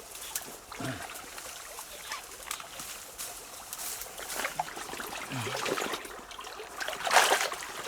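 Water trickling and dripping off a fish trap net as it is hauled out of a ditch, with small splashes and rustling; a louder splash about seven seconds in.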